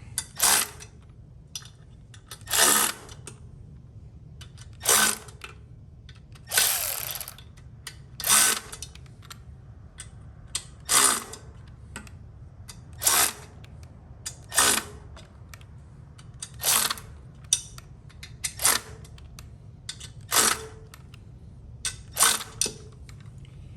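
Ratchet wrench clicking in short strokes, about one every two seconds, as bolts are tightened to pull the freshly welded intake down into place, over a steady low hum.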